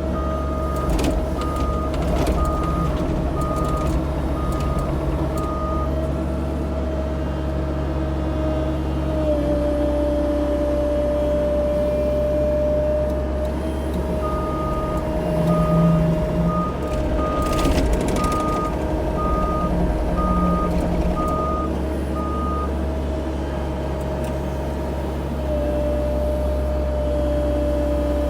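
CAT 304 E2 mini excavator's diesel engine running steadily under work, its pitch dipping slightly twice. Over it a warning beeper sounds in two runs of evenly spaced beeps, like a travel or backup alarm, with a few short knocks from the machine working debris.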